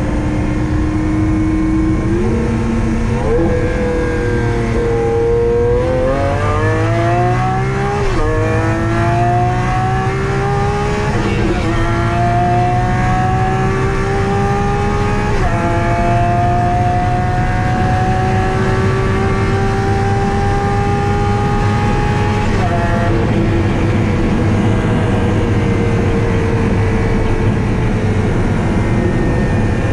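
Lamborghini Aventador SV V12 with a catless Fi Exhaust, heard from inside the cabin, accelerating hard through the gears: the engine note climbs steadily in each gear and drops sharply at each of about four upshifts, then sinks slowly near the end as the throttle eases.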